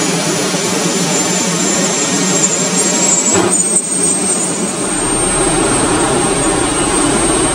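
Twin General Electric F110 turbofans of the TAI KAAN fighter running as the jet taxis: a steady, loud jet rush with a high whine on top, briefly dipping about three and a half seconds in.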